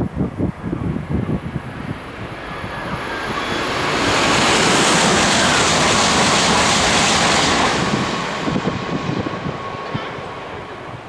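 Doctor Yellow, the 923 series Shinkansen inspection train, passing through the station at speed without stopping: a rushing whoosh that builds as it approaches, is loudest for about four seconds as it goes by, and then fades away.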